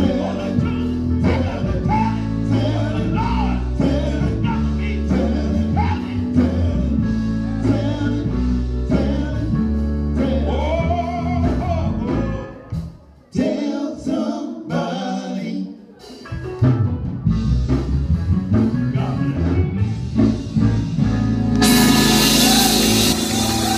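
Live gospel music: a man singing into a microphone over electric bass guitar and a drum kit. The band drops out briefly about halfway, then picks up again. Near the end a loud, even wash of noise comes in over the music.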